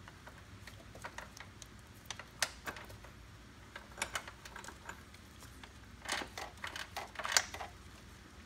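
Metal roller drive chain clicking and clinking as it is fed by hand around a sprocket: scattered light clicks, with busier clusters near the end.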